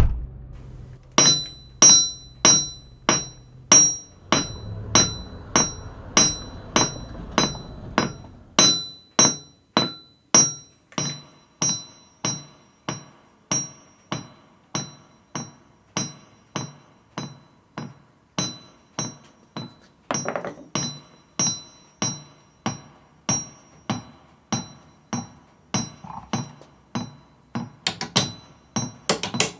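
Hammer striking metal in a steady rhythm, about one and a half blows a second, each blow ringing briefly; the blows come faster near the end.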